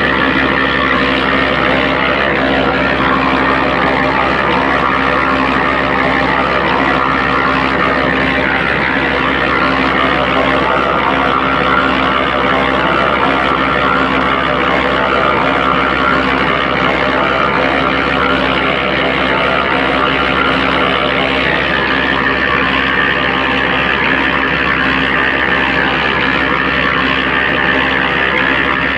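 Electric concrete mixer running steadily, its drum turning a damp sand-and-cement dry mortar mix that tumbles inside while a hose sprays water in. A steady motor hum sits under a dense, gritty rush that never lets up.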